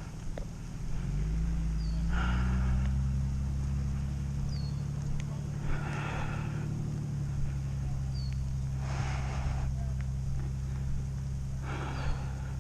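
A vehicle engine speeding up about a second in, then running steadily, with short bursts of hiss every few seconds.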